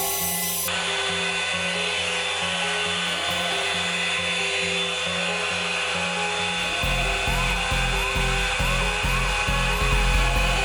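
Revlon One-Step hair dryer brush running with a steady motor whine and airflow hiss, under background music whose bass beat comes in about seven seconds in.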